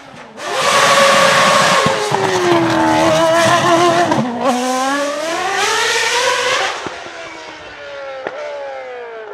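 Renault Formula 1 car's engine at high revs going past close by. The pitch sinks, drops sharply just after four seconds and climbs again as it accelerates. Then the engine fades as the car pulls away, with its pitch falling.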